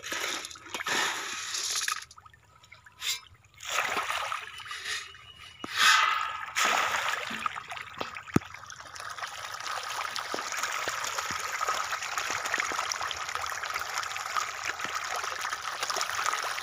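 Farmed pond fish crowding and splashing at the water surface in a feeding frenzy, a steady churning splash hiss. It starts as a few separate splashes, and from about six seconds in it becomes continuous.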